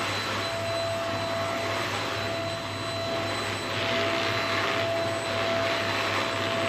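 Vacuum cleaner running steadily, a constant rushing noise with a steady whine over it.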